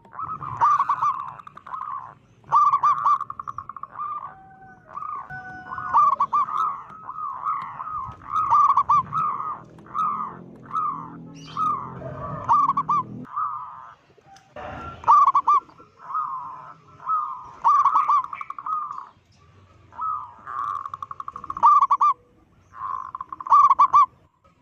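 Zebra dove (perkutut) singing loudly: the same rolling, stuttering coo phrase repeated over and over, about one phrase every one and a half to two seconds with short pauses between. A brief noise with no clear pitch comes about fifteen seconds in.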